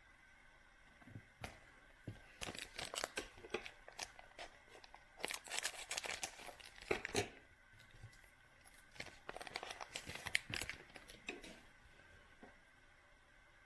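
A trading-card pack wrapper being torn open and crinkled by hand, in three bouts of crackling tearing with short quiet gaps between them.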